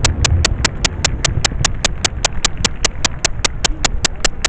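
A steady ticking, about five sharp clicks a second, over a low rumble from fireworks bursts that fades away.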